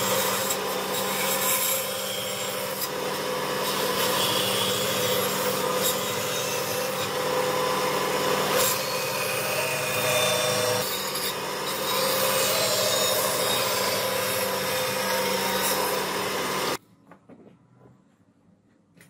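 Bandsaw cutting through a thick block of wood along a marked line: a steady motor hum under the noise of the blade in the wood. The sound stops abruptly near the end.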